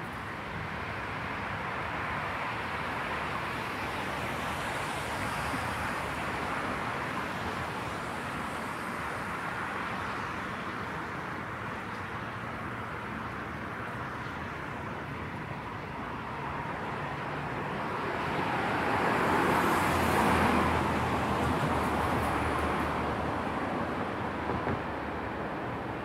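Light road traffic: a steady rush of distant vehicles on the road, with one vehicle passing closer about three-quarters of the way through, the loudest moment.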